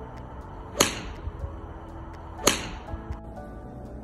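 Two sharp cracks of a golf club striking a ball, about a second in and again a second and a half later.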